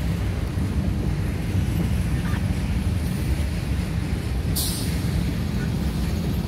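Diesel freight locomotive engine running with a steady low rumble as it moves slowly away. A short hiss cuts in about four and a half seconds in.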